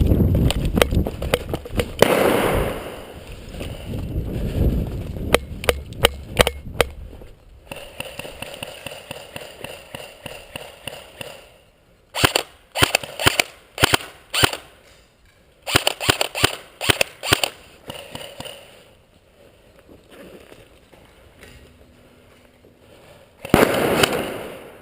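Airsoft guns firing in short rapid bursts of sharp clacks, several bursts in the second half, with loud rustling and scuffling at the start and again near the end.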